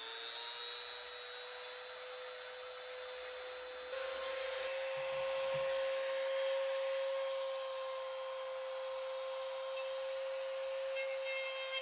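Handheld rotary tool running unloaded at high speed, a steady high whine, spun up to check the bit for wobble. About four seconds in the speed steps up slightly, and it eases down a little near the end.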